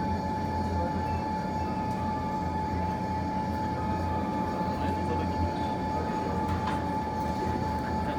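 Steady indoor room noise: a constant low rumble with a thin, even hum above it, and a few faint clicks.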